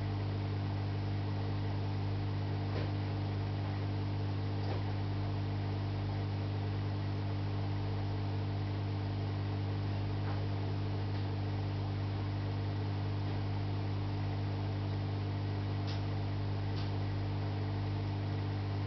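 Steady low electrical hum from aquarium equipment, with a few faint ticks.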